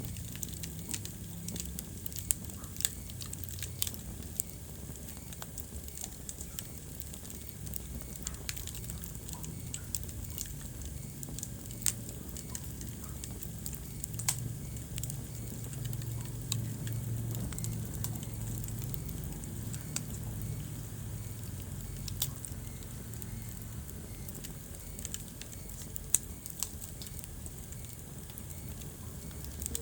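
Wood fire burning in a fireplace: a steady low rumble of flames with frequent sharp crackles and pops, and a few louder snaps now and then.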